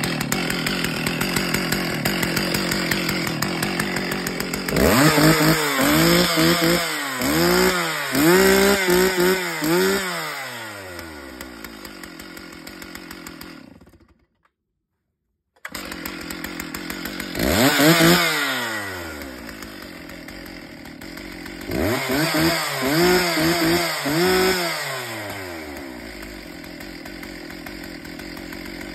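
Stihl two-stroke chainsaw idling, revved in a run of quick throttle blips that each rise and fall back, then settling to idle; it is revved again once, then in another run of blips, and returns to idle. The sound cuts out completely for about a second and a half near the middle.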